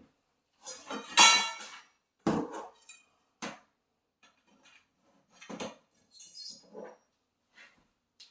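Metal grow-tent frame poles clanking and knocking as they are handled and fitted together: a ringing clang about a second in, then scattered sharper knocks.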